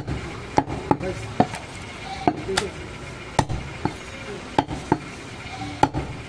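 A heavy cleaver chopping a mutton leg on a round wooden chopping block: about ten sharp chops at an uneven pace.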